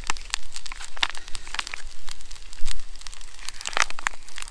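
Plastic food pouch crinkling as it is squeezed to push the tuna out, with irregular sharp clicks and crackles throughout and a louder cluster near the end.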